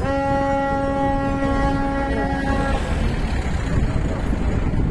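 A car horn blowing one long steady note for about two and a half seconds, then stopping abruptly, over a constant low rumble of traffic and wind.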